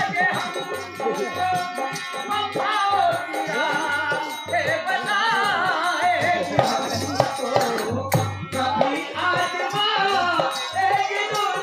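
Live Indian folk song over a PA: a singer's wavering, ornamented vocal line with harmonium accompaniment, a steady drum beat about two to three beats a second, and a jingling rattle throughout.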